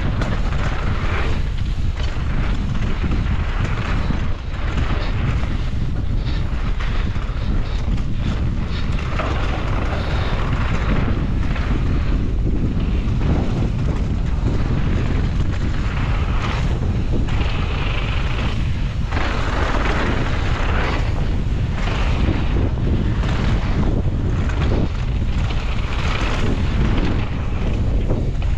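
Wind buffeting the microphone of a mountain bike riding fast downhill, with tyres rolling over a dry dirt trail and frequent irregular rattles and knocks from the bike.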